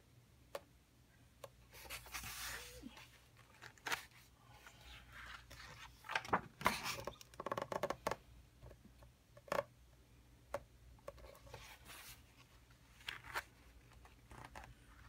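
Pages of a coloring book being turned by hand: the paper rustles and swishes in short bursts, with small taps and clicks, several times over.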